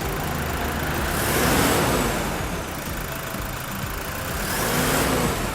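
Toyota Hilux turbodiesel engine revved twice from idle, with a high hiss and whistle from the turbocharger at each rev. The noise comes from a turbo apparently failing, found to be wrecked by oil starvation after its oil feed line was blocked with silicone.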